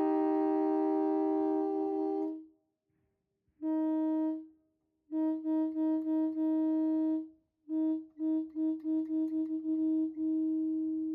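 Railroad air horns blown from a portable air tank: a chord of several horn notes fades out about two seconds in. Then a single-note horn gives one short blast, a longer blast broken by quick stutters, a run of short toots, and a long held blast near the end.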